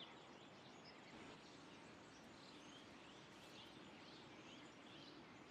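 Faint bird chirping: a series of short repeated chirps, a couple a second, over a low steady outdoor hiss.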